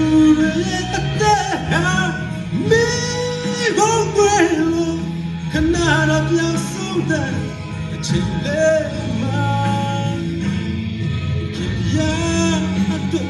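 A man singing into a handheld microphone, amplified through the hall's speakers, over accompanying music with steady low bass notes.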